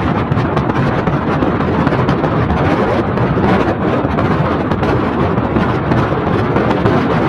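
A car driving along a wet, broken road: a loud, steady rush of tyre and wind noise, with a rough rumble low down.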